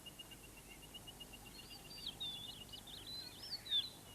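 Wild birds calling: a fast, even trill of short notes, about eight a second, and from about one and a half seconds in, varied chirps and whistles over it. The loudest call comes near the end.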